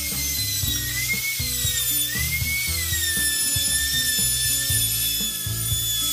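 Compact trim router running at speed and cutting plywood, a high whine whose pitch sags and recovers as the bit takes load. Background music with a steady bass line plays under it.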